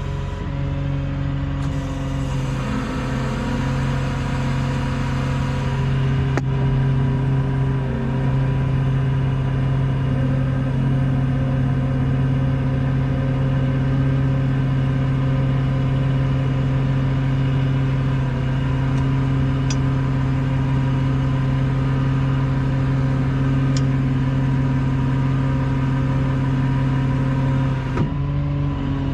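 A vehicle engine running steadily at a constant speed, with a small shift in its note a couple of seconds in and again near the end.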